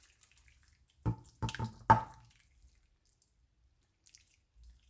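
A spoon knocking wetly against cookware while working thick sauce, about four quick clunks within a second, a little ringing.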